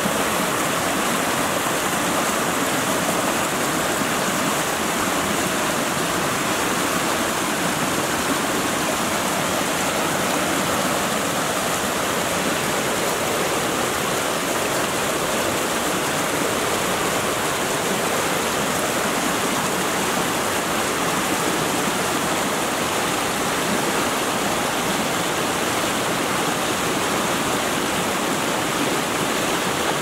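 Small rocky stream rushing and splashing over stones, a steady, unbroken sound of running water.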